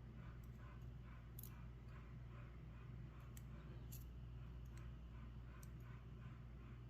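Faint, sparse small metallic clicks of brass lock pins and small parts being handled as a pin-tumbler lock is taken apart, over a low steady hum.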